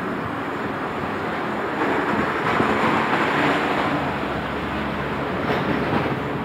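Street traffic noise, with a passing vehicle swelling from about two seconds in and fading again a few seconds later.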